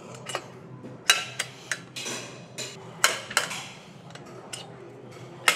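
Irregular sharp metallic clinks and clanks, about ten hits, typical of gym weights and equipment being handled, over a low steady hum.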